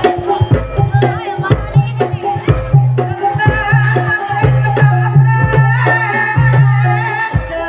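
Live East Javanese jaranan ensemble music: kendang hand drums play a busy rhythm over held low tones. A wavering high melody comes in about three seconds in.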